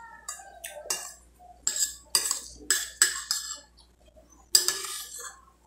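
Metal spoon clinking and scraping against a clear bowl as stew is scooped up: a string of sharp clinks, the loudest about four and a half seconds in.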